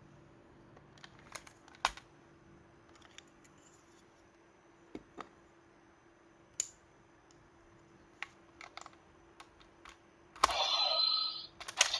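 Scattered sharp plastic clicks of a sentai transformation toy being handled and its buttons pressed, then, about ten seconds in, a loud electronic sound effect from the toy's speaker for about a second, followed by two more clicks.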